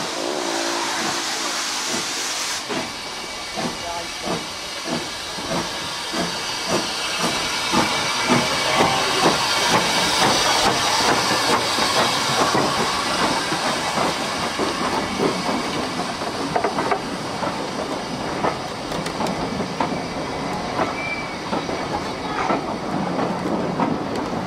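Robert Stephenson & Hawthorns saddle-tank steam locomotive getting under way. It opens with a hiss of steam, then settles into a chuffing exhaust beat that picks up pace and grows louder as it gathers speed.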